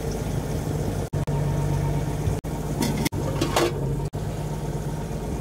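Fishing boat's engine running with a steady low hum, broken by several brief dropouts, with a short higher-pitched sound about halfway through.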